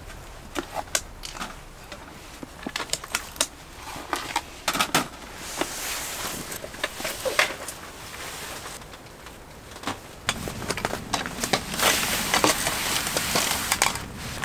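Campfire crackling with irregular sharp pops, over a rushing hiss of gusty wind that swells about ten seconds in.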